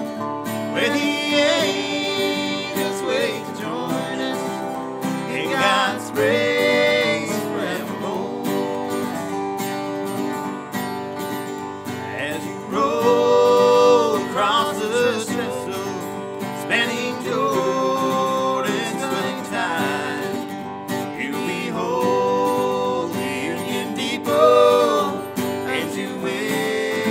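Instrumental break in a bluegrass-style gospel song: an acoustic guitar keeps the rhythm while a resonator guitar plays the lead melody, its notes bending and sliding in pitch.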